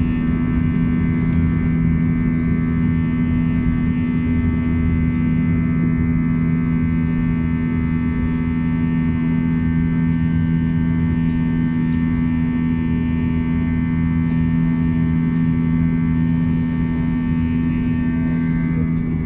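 Airbus A321 jet engines heard inside the passenger cabin during the climb-out after takeoff: a loud, steady drone with a strong low hum and a rumble beneath it.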